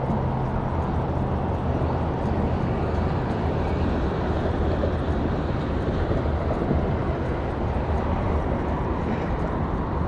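Motorboat engine running steadily underway, a constant low hum under a wash of wind and water noise.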